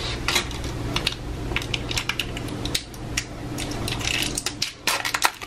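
Small plastic slime cup and its packaging handled in the fingers: irregular light plastic clicks, taps and crinkles as its sealed lid is picked at, over a low steady hum.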